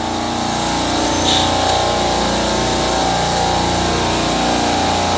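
Refrigeration rack compressors running with a steady mechanical drone and hum.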